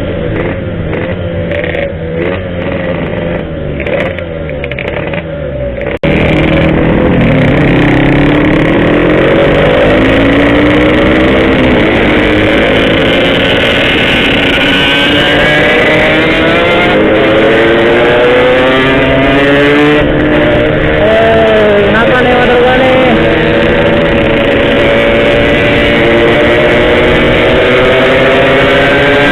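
Yamaha RX-King's single-cylinder two-stroke engine running while the bike is ridden, its pitch rising and falling as the rider opens and eases the throttle through the gears. About six seconds in it cuts suddenly to a louder, closer engine sound.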